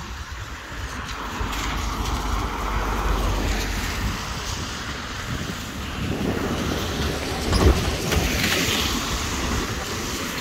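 Cars driving past close by on a rain-soaked road, their tyres hissing on the wet surface in two swells, with wind rumbling on the microphone. A single sharp knock about three-quarters of the way through.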